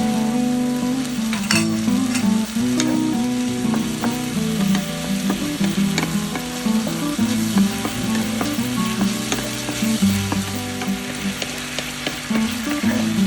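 Food sizzling as it is stir-fried in a pan, with short scrapes and clicks of a utensil against the pan. Background music with held low notes plays under it.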